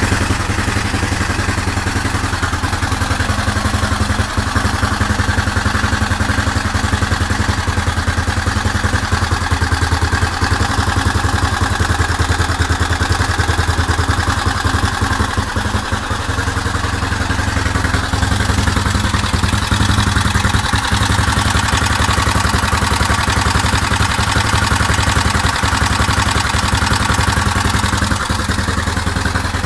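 Suzuki DR750's large single-cylinder four-stroke engine idling steadily, with a rapid, even pulse.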